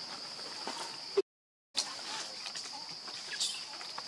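Steady high-pitched insect drone, broken by a half-second gap of complete silence just over a second in. Scattered light clicks, and a short call falling in pitch about three and a half seconds in.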